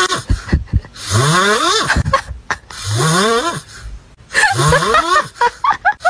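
Sleeping puppy snoring loudly, a squeaky snore rising in pitch about every second and a half, with a breathy hiss between them.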